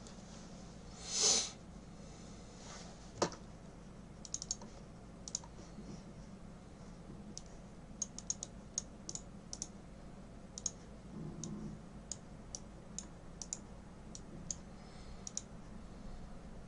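Computer keyboard typing in sparse, irregular key clicks. A short loud whoosh of noise comes about a second in, the loudest sound here.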